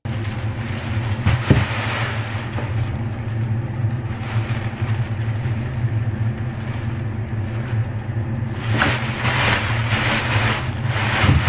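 Thin plastic carrier bag rustling and crinkling as it is opened and handled, starting about three-quarters of the way in, over a steady low hum.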